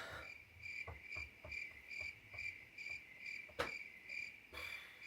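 Crickets chirping: a steady run of short, high chirps, about two or three a second, standing in for an awkward silence. A single sharp click cuts through about three and a half seconds in.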